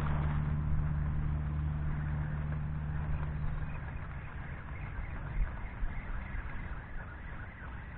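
A motor vehicle's engine hum that fades away over the first three or four seconds, over a steady hiss of light rain. A few soft knocks come about five to six seconds in.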